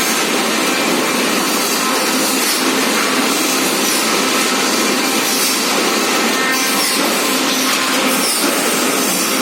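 Forklift working: a loud, steady machine noise with no breaks.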